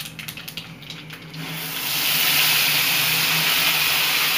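Mustard seeds crackling faintly in hot mustard oil in a kadhai, then, about a second and a half in, wet ground masala paste hits the oil and it sizzles loudly and steadily.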